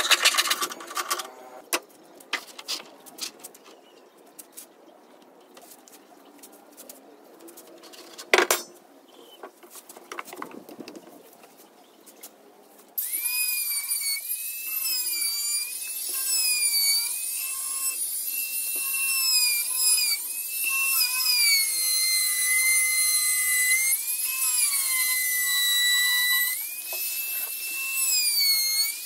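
Faint scattered clicks and taps, with one sharp knock about eight seconds in; then, about halfway through, a handheld trim router comes in suddenly with a high whine whose pitch wavers and dips as it is loaded, trimming the overhanging edge of HPL laminate on plywood.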